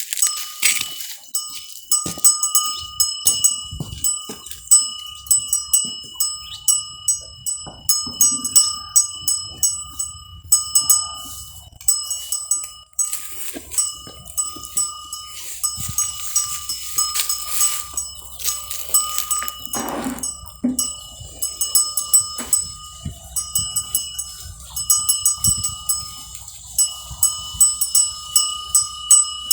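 Metal bell on a feeding animal clinking irregularly, several times a second, as it eats, its ring hanging on between strikes.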